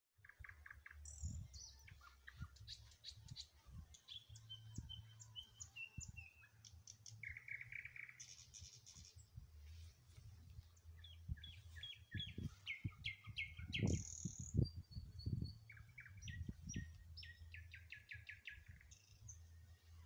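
Songbirds singing in a garden: a steady run of quick high trills and short whistled phrases. Under them is a low rumble with scattered low thumps, the strongest about two-thirds of the way through.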